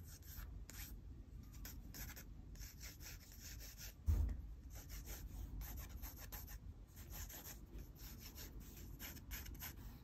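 Pentel GraphGear 500 mechanical pencil with 0.5 mm lead scratching on sketchbook paper in short, light strokes while rough guide lines are laid down. A low thump about four seconds in is the loudest sound.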